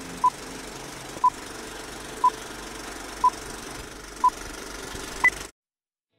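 Six short electronic beeps one second apart, five at the same mid pitch and the last one higher, like a countdown, over a faint steady hiss; the sound cuts off abruptly into silence just after the last beep.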